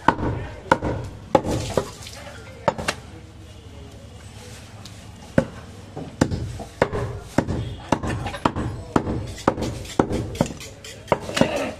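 Heavy butcher's cleaver chopping goat meat on a round wooden chopping block: sharp chops early on, a pause of about three seconds, then a steady run of chops at roughly two a second.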